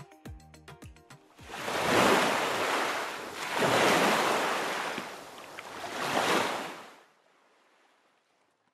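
The last beats of background music stop about a second in, followed by a surf sound effect: three swells of breaking-wave noise, each rising and falling away. It fades out about seven seconds in.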